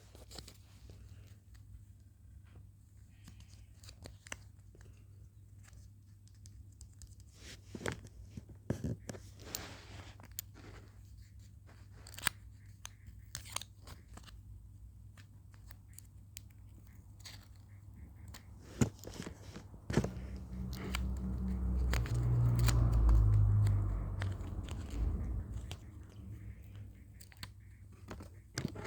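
Blind bag packaging being handled and torn open: crinkling plastic with scattered sharp clicks and rustles. About twenty seconds in, a loud rumble of heavy breathing on the microphone swells for several seconds and then fades.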